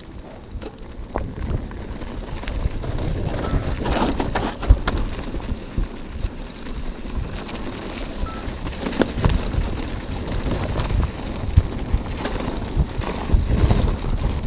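Hardtail mountain bike rolling fast down a dirt trail covered in dry leaves, with wind buffeting the microphone and frequent knocks and rattles as the bike hits rough ground, getting louder as speed picks up near the end.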